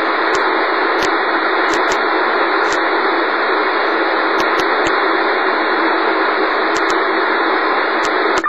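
Shortwave radio receiver giving out loud, steady static hiss with scattered sharp clicks, starting and cutting off abruptly.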